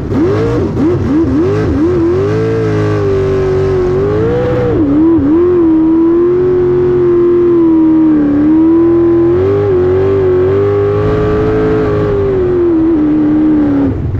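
Jet sprint boat's engine running hard through a race course. Its pitch swings quickly up and down in the first couple of seconds through the turns, then holds high and fairly steady. It drops off sharply near the end.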